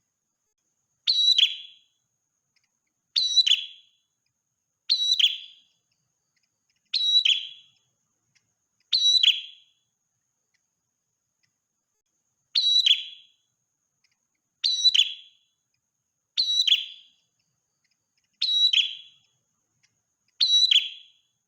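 A prenjak merah calling: a short, sharp, high call, repeated about every two seconds, ten times, with a longer pause about halfway through.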